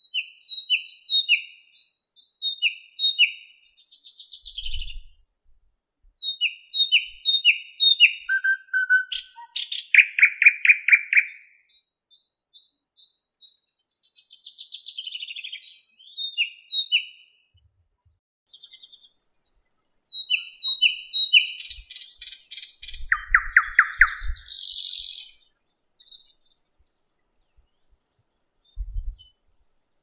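Thrush nightingale singing: phrases of short whistled notes, each repeated several times in a row, and loud rapid clicking rattles, with short pauses between phrases.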